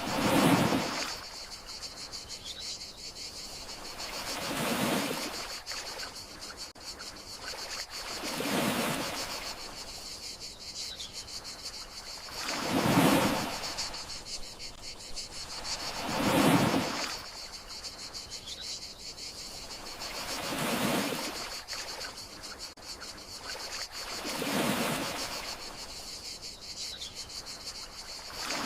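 Gentle sea waves washing ashore, one swell about every four seconds, over a steady high chirring of crickets.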